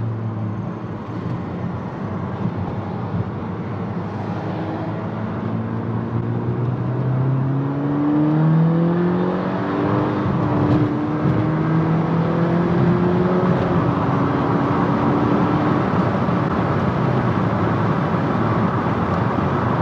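Volkswagen GTI's turbocharged 2.0-litre four-cylinder pulling on the road on a freshly replaced turbo, with no wastegate rattle. The engine note climbs for several seconds and drops once as it shifts up, then holds while road noise grows.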